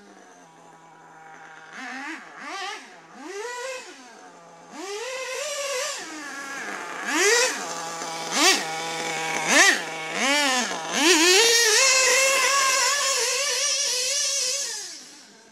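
Small two-stroke nitro engine, a Novarossi 528 in an RC buggy, idling and then revved in a string of short throttle blips that rise to a high whine and fall back. Near the end it is held at high revs for about four seconds before dropping back to idle.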